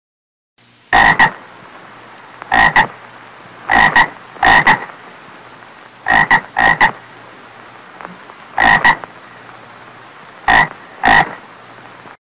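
A toad calling with short, sharp croaks, mostly in quick pairs, repeated every second or two over a faint steady background hum.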